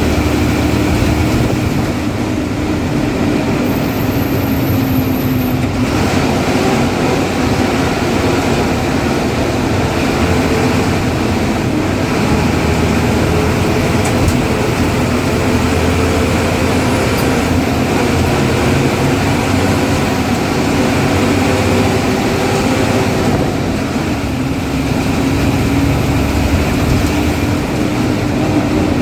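Ashok Leyland bus's diesel engine running at speed: a steady, loud drone mixed with road noise, its pitch drifting slightly up and down with engine speed.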